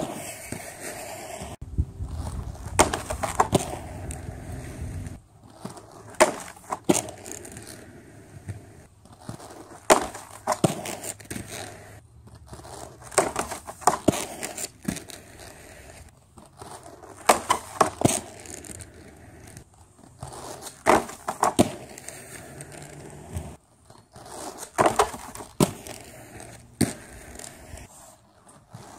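Aggressive inline skates hitting a homemade plastic grind rail on a wooden beam, over and over: each pass is a quick clatter of clacks and a short scraping slide as the skate lands on and grinds along the rail, then drops back to the concrete. Passes come roughly every three and a half seconds, with a softer rolling of skate wheels on concrete between them.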